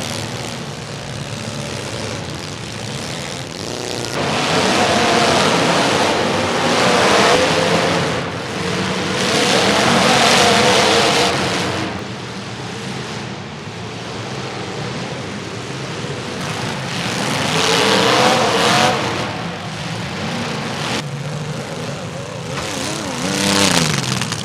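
Demolition derby cars' engines revving hard in repeated surges, the pitch climbing and falling as the cars accelerate and ram each other, under a steady wash of arena noise.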